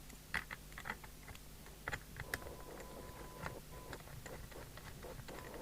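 Scattered light clicks and taps from handling equipment on a radio service bench, over a low steady hum. A faint steady high tone comes in a little over two seconds in.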